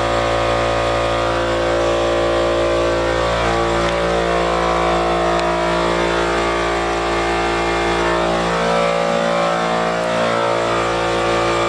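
Car engine running steadily at a near-constant idle, its pitch shifting slightly a few times, then stopping abruptly near the end.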